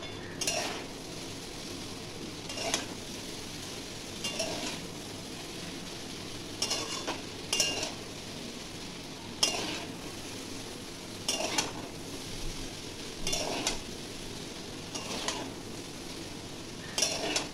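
A spatula scrapes and knocks against a steel wok as noodles are stir-fried. The strokes come about every second or two over a steady sizzle.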